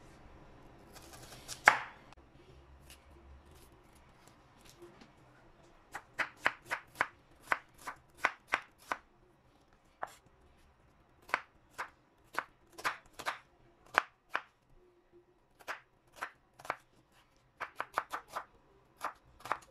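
Red onion being cut with a chef's knife on a wooden cutting board. About a second in there is one long crunching cut that ends in a knock. From about six seconds on come short runs of sharp knife knocks on the board, about three to four a second.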